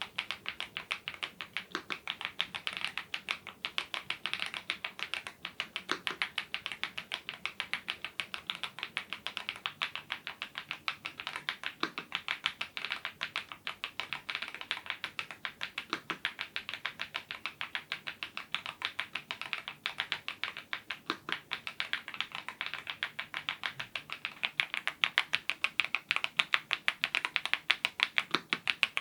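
Fast continuous typing on a YUNZII IF99 full-size mechanical keyboard with lubed Gateron Zero switches: rapid keystroke clacks, with a deeper thump every few seconds. The typing gets louder near the end.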